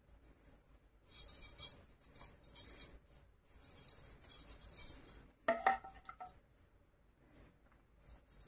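Metal bangles on the wrist jingling lightly and unevenly as a hand strokes sauce over pizza dough with a silicone brush, with a short ringing clink a little past halfway.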